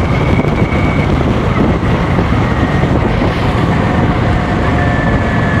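Cruiser motorcycle engine running steadily at road speed, with wind rushing over the microphone.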